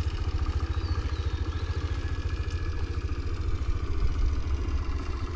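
Small motorbike engine running steadily at low revs, with a fast, even low pulsing.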